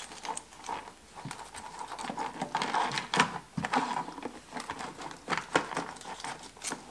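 Knife cutting and prying through the shell of a raw crayfish (southern rock lobster), an irregular run of cracking clicks and crackles as the tail is separated from the body.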